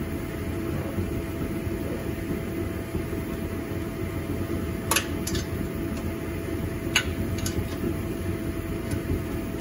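A 12 mm hand wrench clicks sharply against a muffler flange bolt a few times while loosening it, loudest about five and about seven seconds in, over a steady background hum.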